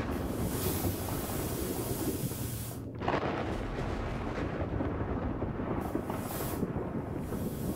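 Stage CO2 jets and pyrotechnic spark fountains hissing in bursts that start and stop, over a low rumble, with a sudden louder blast about three seconds in.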